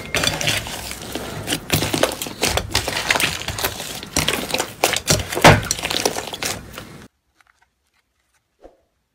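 Hands squeezing and kneading a thick slime, with dense crackling and popping from air trapped in it and one louder pop about five and a half seconds in. The sound cuts off abruptly about seven seconds in, leaving only a few faint sticky clicks as a glossy slime is stretched.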